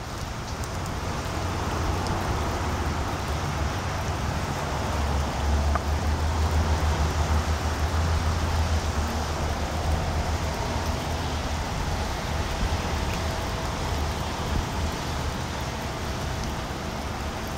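Rain falling on a lake, a steady hiss, with a low rumble under it that swells in the middle and then eases off.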